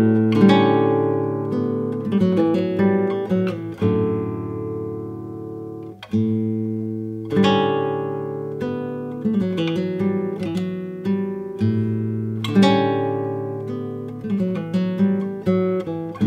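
Background music: acoustic guitar playing plucked and strummed chords, each struck and left to ring.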